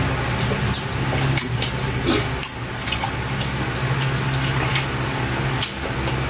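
Eating sounds from close to the microphone: chewing and lip smacks as rubbery adobo octopus is eaten by hand, heard as scattered short sharp clicks over a steady low hum.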